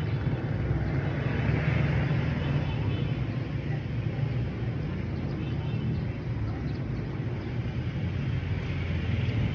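Steady outdoor urban background noise with a low rumble.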